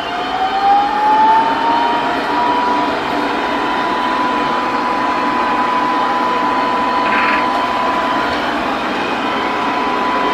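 TP-Link Tapo RV30 Plus robot vacuum running in mopping mode, its suction fan spinning up with a rising whine that levels off during the first two seconds into a steady high whine over a rushing air noise.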